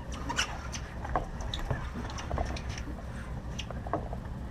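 Steady low rumble of the charter boat's engine, with scattered light clicks and ticks at irregular intervals.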